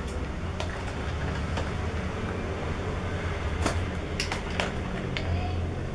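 A steady low background hum, with a few light clicks as scissors work at a small cardboard box to cut it open.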